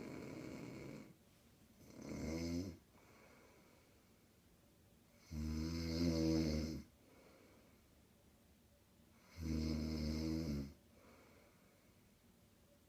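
A sleeping woman snoring loudly: three low, buzzing snores about four seconds apart, the first one shorter, with quiet breathing between them. A breathy exhale fades out about a second in.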